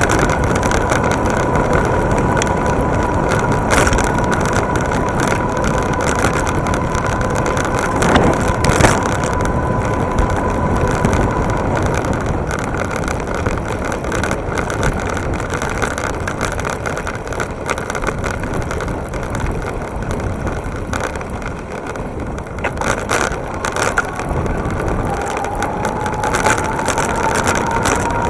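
Wind and road noise from a fast electric-bike ride, with a steady whine from the EasyMotion Nitro Cross's electric assist motor. The whine fades out partway through and comes back near the end, climbing in pitch. A few knocks from bumps on the rough road.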